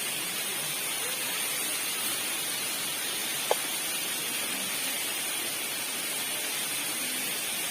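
Steady, even rush of a waterfall about 10 metres high, heard as a constant hiss, with one short click about three and a half seconds in.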